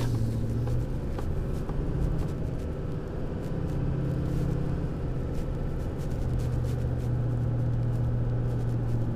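Steady low drone of a Ford Super Duty pickup truck driving along, engine and road noise heard from inside the cab.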